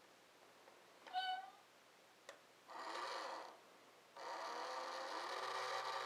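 Kitty coin bank toy: a short meow about a second in and a click, then its small motor whirs in two spells as the mechanical cat pushes the box lid open and reaches out.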